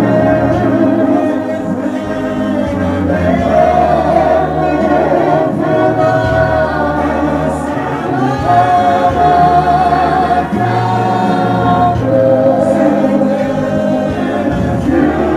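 Gospel worship choir of men and women singing together, with long held notes.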